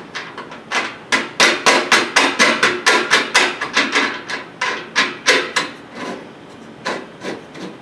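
Quick run of sharp metallic clicks and rattles, about four or five a second, as a wing nut is spun by hand down a threaded stud against a corrugated aluminum hurricane shutter panel. The clicks thin out to a few spaced ones after about six seconds.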